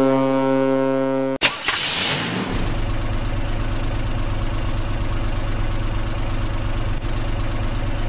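A ship's horn sounds one long, steady blast that cuts off about a second and a half in. Then a vehicle engine starts with a click and a rush and runs steadily.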